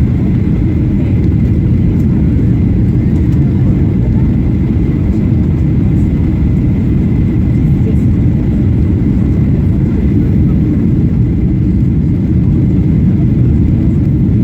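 Cabin noise inside a Boeing 737-800 airliner: the steady low rumble of the engines and airflow, with a faint steady high tone above it.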